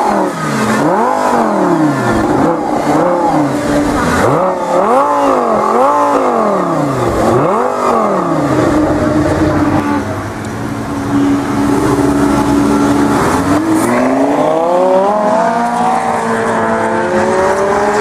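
Lamborghini Gallardo LP560-4 Spyder's V10 revved hard in a series of quick blips, each rising and falling sharply, then settling to a steady idle. From about two-thirds of the way in, the engine pulls with steadily rising pitch as the car accelerates, changing up a gear near the end.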